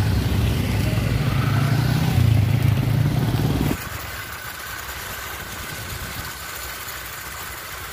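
Several motorcycles and scooters running together, a loud low engine drone. About four seconds in it cuts abruptly to a much quieter steady hum of a motorcycle riding along a road.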